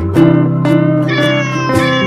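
Music with cat meows mixed into it.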